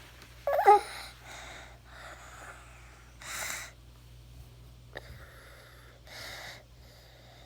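A sick young child gives one short, loud cough with some voice in it, then breathes in and out audibly a few times.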